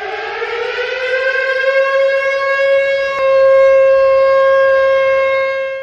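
Siren winding up: a single wailing tone rises in pitch over the first couple of seconds, then holds one steady pitch, growing louder about three seconds in.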